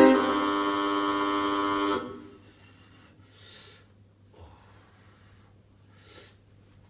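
A held, buzzing horn-like chord sounds for about two seconds and cuts off, then a few faint, short breaths follow.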